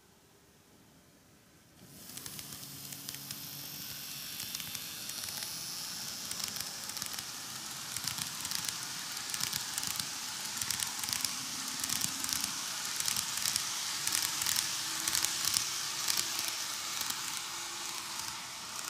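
N-gauge model train, a KATO ED79 electric locomotive with ten coaches, rolling along the track: the noise starts about two seconds in and grows into a steady rush of wheels on rail with rapid crackling clicks, loudest as the coaches pass close.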